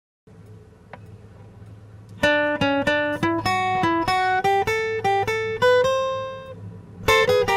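Instrumental music on a plucked guitar: a line of single picked notes stepping upward, turning louder and fuller near the end.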